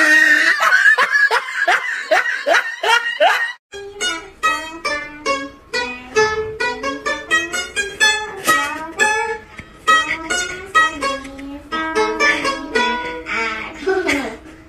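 Pipa played in a quick run of plucked notes from about four seconds in. Before that, a rapid series of short, sliding pitched sounds.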